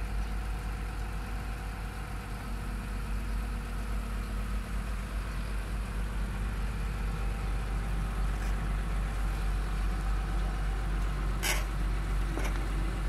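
Excavator-mounted auger drilling rig's diesel engine running steadily, with a sharp click about eleven and a half seconds in and a fainter one shortly after.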